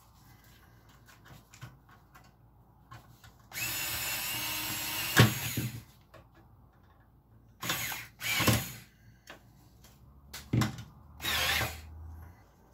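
Parkside drill-driver whirring in short runs against the metal frame of an oven door: one run of about two seconds, then four shorter ones, with a sharp click at the end of the first.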